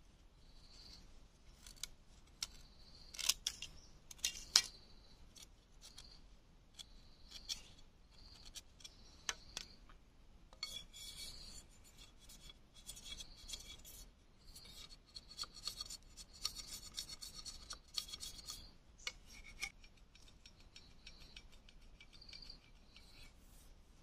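A knife blade scraping and shaving a thin bamboo stick in a run of short rasping strokes, with two sharper scrapes about three and four and a half seconds in. Insects buzz in the background in short repeated pulses.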